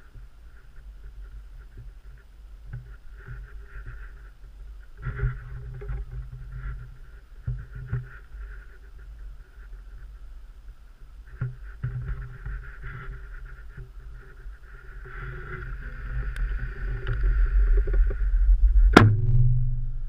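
Low wind rumble and rustling of leaves and clothing on a body-worn GoPro microphone, swelling over the last few seconds. Then a single sharp snap about a second before the end.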